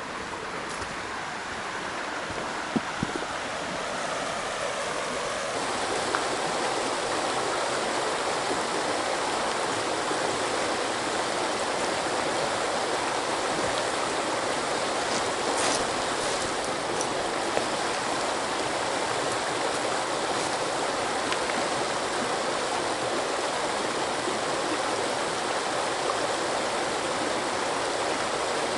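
Shallow, rocky river running over stones: a steady rush of water that grows louder over the first five seconds or so and then holds even. A couple of sharp knocks about three seconds in.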